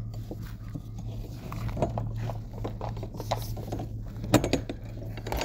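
Metal clicks and clanks of an enclosed cargo trailer's cam-bar door latch being handled and worked open, with a cluster of louder clanks about four and a half seconds in, over a steady low hum.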